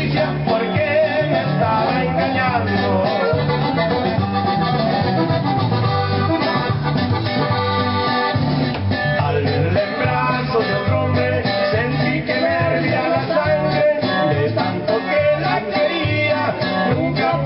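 Music with guitar and accordion over a steady bass beat.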